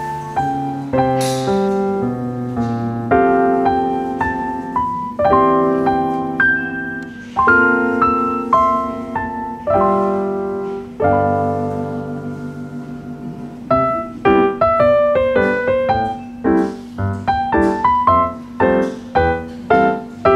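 Background piano music: slow, sustained chords that turn into quicker, separate notes in the second half.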